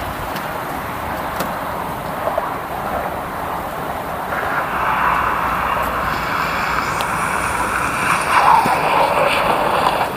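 Car on a snowy road: a steady rush of tyre and engine noise that grows louder about four seconds in as it approaches.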